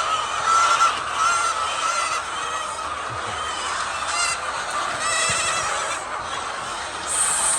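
A flock of hens clucking and calling over one another, with repeated short cackles standing out. A hiss starts just before the end.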